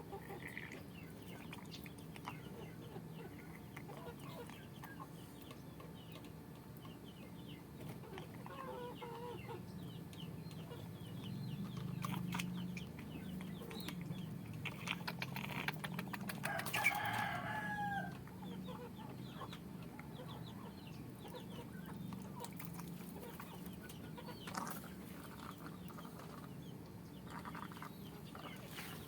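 Chickens clucking, with a rooster crowing more loudly a little past the middle.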